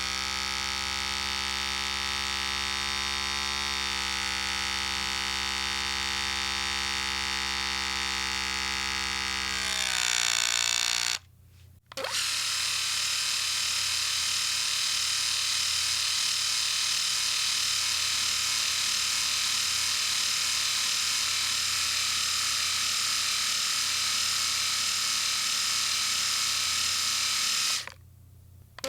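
Electric shaver running with a steady buzz. Its pitch rises slightly just before it switches off about eleven seconds in. After a second's pause a shaver with a higher, hissier buzz switches on and runs steadily, switches off near the end, and starts again at the very end.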